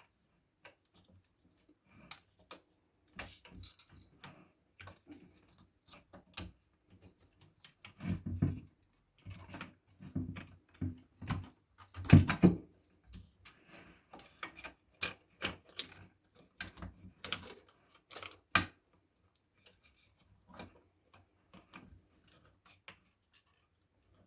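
Irregular clicks, taps and knocks of hard parts being handled and set down, with two heavier knocks about 8 and 12 seconds in.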